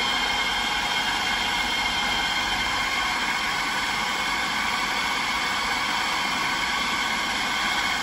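Electric food processor running steadily, its motor whirring with a steady high whine as it blends smoked fish dip of cream cheese and sour cream.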